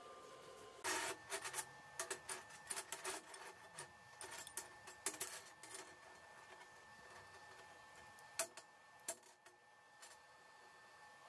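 Light metal clinks and knocks as pieces of square steel tubing are set down and shifted on a steel welding table. There is a quick cluster of them about a second in, then two single knocks near the end.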